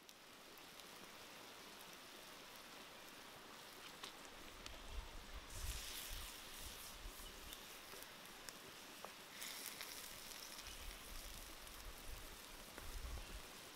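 Octopus and tomato curry simmering in a wide earthenware pan over a wood fire: a low, steady hiss with a few faint crackles, growing louder and brighter for a second or so about halfway through while it is stirred, and again a little later, with some low rumbles.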